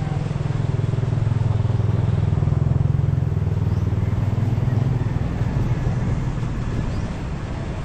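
A motorcycle passing close by: its low engine rumble grows over the first three seconds, then fades away near the end.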